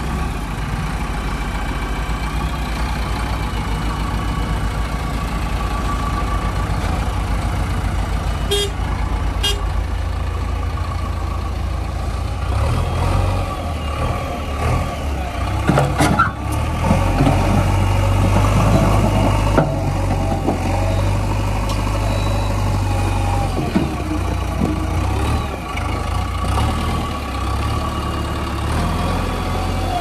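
JCB 3DX backhoe loader's diesel engine running steadily under work, a low throb that grows busier and a little louder in the middle. A sharp clatter about halfway through, typical of stone and mud dropping into the steel dump body of a truck.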